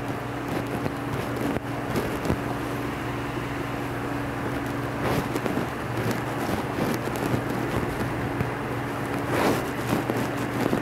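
Steady low machine hum, with a few soft clicks and rubs as the greased gears under an industrial sewing machine are turned by hand.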